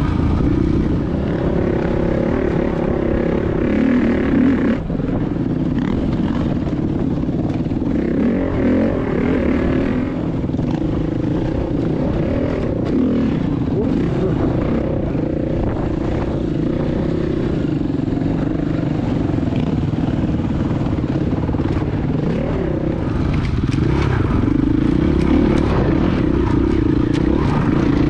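Dirt bike engine running steadily under the rider while trail riding, its note rising and falling with the throttle, with some clatter over the rough ground.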